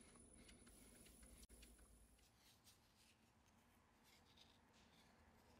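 Near silence: a faint lathe hum cuts off about one and a half seconds in, followed by faint scratching of a wooden craft stick stirring glue on a mixing disc.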